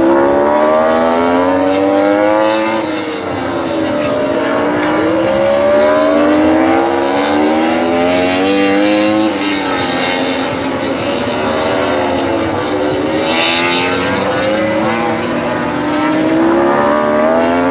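MotoGP race motorcycles accelerating along the circuit. Each engine's pitch climbs through a gear and drops sharply at every upshift, and the sounds of several bikes overlap.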